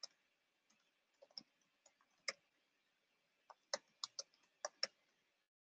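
Faint, irregular keystrokes on a computer keyboard: a few scattered clicks, then a quicker run of taps from about three and a half to five seconds in.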